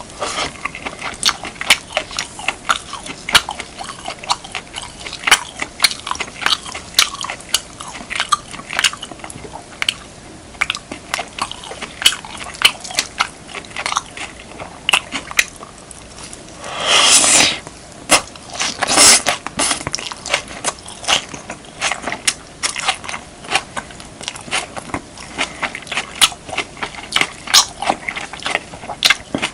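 Close-miked mouth sounds of a person chewing a mouthful of beef, kimchi and rice: a quick, irregular stream of wet, sharp chewing clicks. Two louder, longer crunches come about 17 and 19 seconds in.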